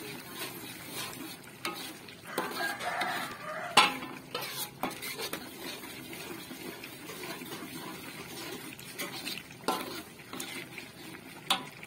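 A metal spatula stirring and scraping thick chili paste around an aluminium wok, with sharp clinks of metal against the pan; the loudest clink comes about four seconds in.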